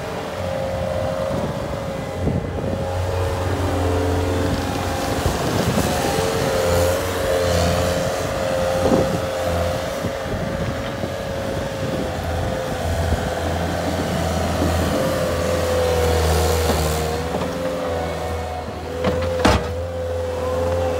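Cat 289C compact track loader's diesel engine running as the machine drives over dirt on its rubber tracks, with a steady high whine over the engine hum. One sharp clank near the end.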